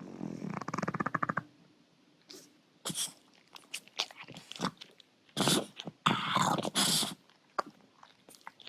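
French bulldog making odd noises: a rapid rattling sound for the first second and a half, then scattered short noises, and two louder, harsh noisy bursts about five to seven seconds in.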